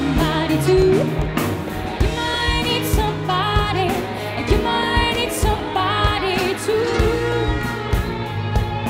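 Live pop-rock band playing: drums keep a steady beat under electric guitar, bass and keyboard, with a gliding, bending melody line on top.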